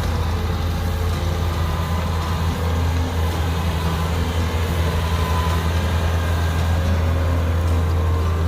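Kubota DC60 combine harvester's diesel engine running steadily, a constant low drone with no change in pitch or level.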